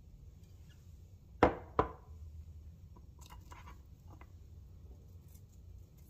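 Glass bowl set down on a kitchen countertop: two sharp knocks close together about a second and a half in, the loudest sounds here, followed by a few fainter light clicks of handling.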